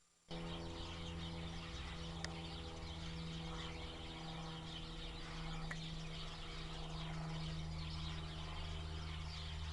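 A flock of small birds chirping together in a dense, continuous chorus, over a steady low hum.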